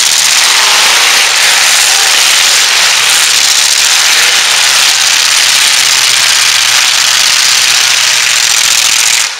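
Engines of several demolition derby trucks running loud and continuous as they maneuver and ram, a heavy unbroken noise that drops away suddenly at the very end.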